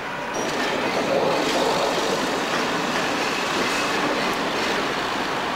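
Diesel train running through the station, a steady noise of wheels on the rails and pointwork that steps up in loudness shortly after the start.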